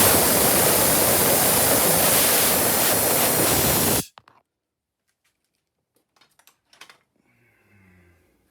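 Loud steady hiss of a pressurised spray jet, which cuts off sharply about four seconds in. It is followed by a few faint light clicks of handling.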